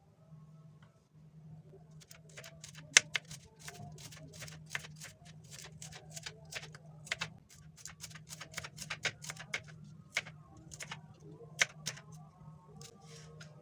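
Knife cutting on a cutting board: a run of quick, irregular sharp taps, about three or four a second, starting about two seconds in and ending near the end. A steady low hum lies underneath.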